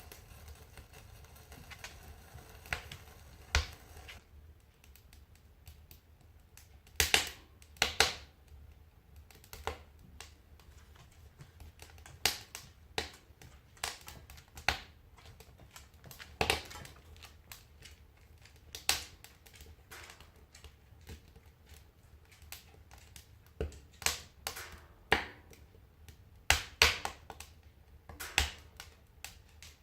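Kindling fire catching in a wood stove, crackling with irregular sharp pops and snaps, some much louder than others. A soft hiss dies away about four seconds in.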